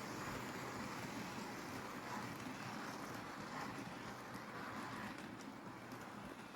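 OO gauge model train running along the track, a steady rumble of wheels and motor that slowly fades as it moves away, with a few faint clicks.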